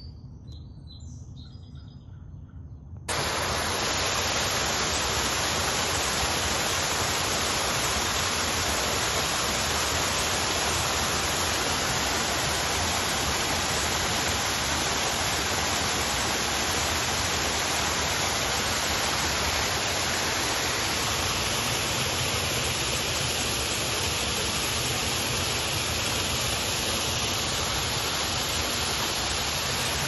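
Man-made waterfall pouring over rockwork: a loud, steady rush of water that starts abruptly about three seconds in. Before it, near-quiet with a few faint high chirps.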